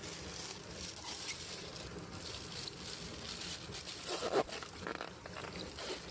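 A plastic bag of milkfish fry crinkling and water sloshing as the bag is worked about in a basin, with a louder burst about four seconds in.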